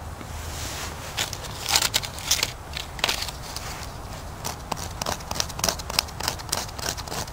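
Sharp stone flake scraping across birch bark in quick repeated strokes, rasping the bark into fine tinder powder. The scratchy strokes start about a second in, several a second.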